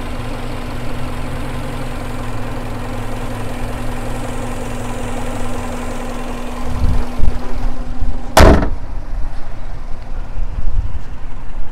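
1996 Subaru Legacy's 2.0-litre boxer flat-four idling steadily in the open engine bay. About eight seconds in the hood is lowered and shut with one loud bang, after which the idle is muffled.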